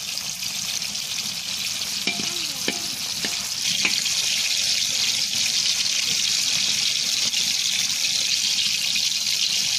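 Pieces of tilapia sizzling steadily in hot oil in a wok, with a few scrapes and taps of a metal spatula turning them in the first few seconds. The sizzle grows a little louder about four seconds in.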